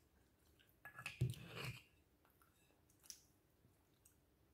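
Fork pressing through a sticky glutinous rice cake and scraping a ceramic bowl, one short burst of eating noise about a second in, followed by a couple of faint clicks.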